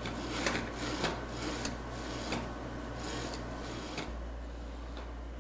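Misumi steel linear-rail carriage slid back and forth by hand, a quick run of short rubbing strokes with clicks about every half second. It stops about four seconds in.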